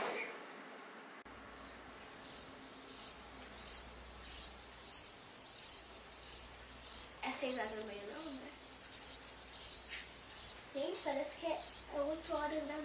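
Cricket chirping repeatedly, short high chirps at about one to two a second.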